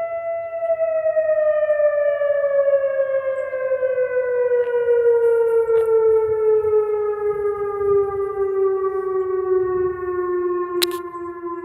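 Whelen outdoor tornado warning siren sounding during a test: one loud tone held briefly, then falling slowly and steadily in pitch. A sharp click near the end.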